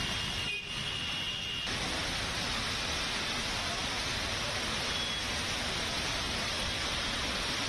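Steady hiss of heavy rain and traffic on waterlogged roads, with cars and motorbikes driving through the wet.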